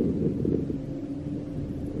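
Wind buffeting the microphone: a low, steady rumble that eases slightly mid-way.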